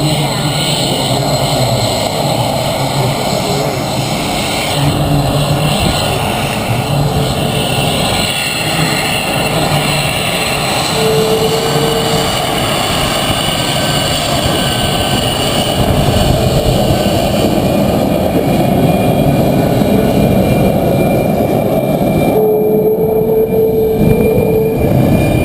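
F-22 Raptor's twin Pratt & Whitney F119 turbofan engines at taxi power: a steady, loud jet roar with a high whine running through it. It grows a little louder past the halfway point.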